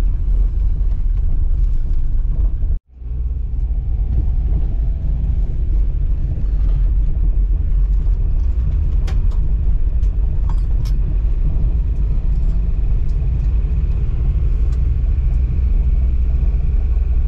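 A car driving, heard from inside the cabin: a steady deep rumble of engine and tyres, partly on a gravel road. The sound breaks off for an instant about three seconds in, and a few light clicks come through around ten seconds in.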